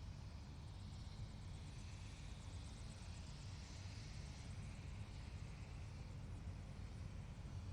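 Helicopter running steadily: a low, unbroken rumble from the engine and rotor with a hiss above it.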